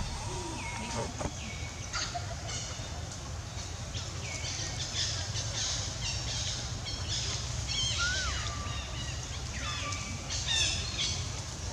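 A baby monkey's repeated short, high-pitched squeals and cries, typical of an infant being weaned, some dropping in pitch and then holding, a few rising and falling, over a steady low rumble.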